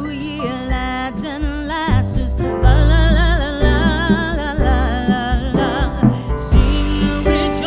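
A song playing: a singer's voice over guitar and bass with a steady beat.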